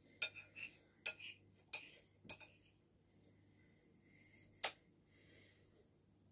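Cutlery scraping and clinking against a ceramic bowl while scooping couscous: a quick run of clicks over the first two and a half seconds, then one sharper clink a little past halfway.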